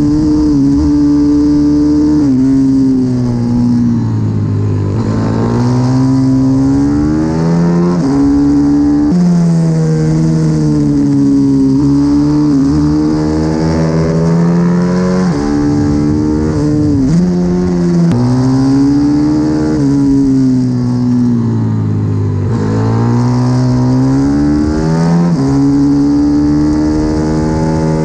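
Onboard sound of a CW 140 pit bike's single-cylinder engine ridden flat out on track, its pitch climbing hard and dropping sharply again and again as it is revved through the gears and eased off into corners.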